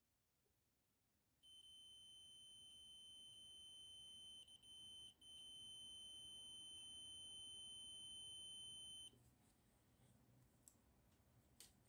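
Digital multimeter's continuity beeper sounding one steady high-pitched tone, starting about a second and a half in and stopping about nine seconds in, with two brief breaks near the middle. The probes are bridging a diesel glow plug, and the unbroken beep shows continuity through it: the glow plug works properly.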